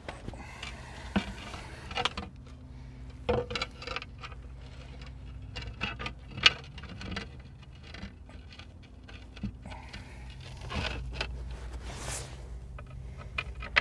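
Scattered knocks, clicks and scraping from hands working parts under a dozer's belly, with the sharpest knock about six and a half seconds in, over a steady low hum.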